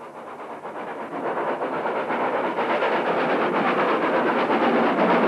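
Hunslet 0-6-0 saddle-tank steam locomotive climbing a grade with a train of coal wagons, its working and the clatter of the wagons growing steadily louder as it approaches.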